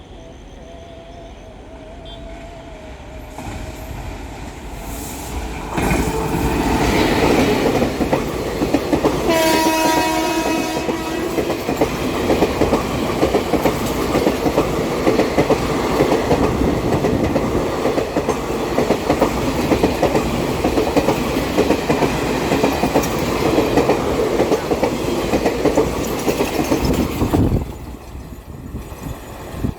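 Express train of ICF passenger coaches passing at speed. A rumble builds as it approaches, and the locomotive's horn sounds once for about two seconds. A long dense run of wheel clatter follows as the coaches go by, dropping off suddenly near the end as the last coach passes.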